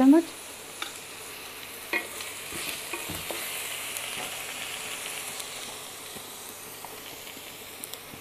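Chopped onions and spices frying in oil in a kadai with a steady sizzle, while a wooden spatula stirs and scrapes through them, with a few light knocks against the pan. The stirring gets busier around the middle.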